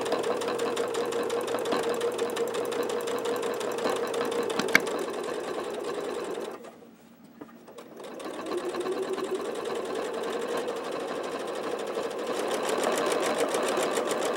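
Domestic sewing machine stitching free-motion over the same stitches again and again, working harder to push the needle through the built-up layers of thread. It runs steadily with one sharp click a little before halfway, stops for about a second and a half, then starts again and speeds up.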